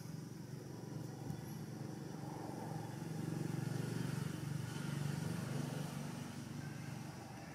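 A low engine rumble that swells over a few seconds and then fades.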